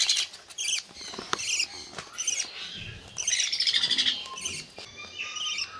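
Baby parrot chicks giving high, short begging chirps and squawks while being hand-fed, with a louder run of rapid calls about halfway through.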